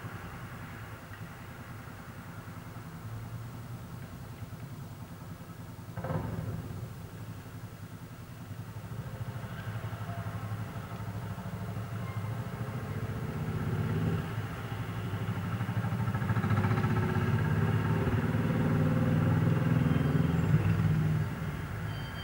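Motor vehicle engine running steadily, with a short louder pass about six seconds in, then building up over the second half and dropping away sharply near the end.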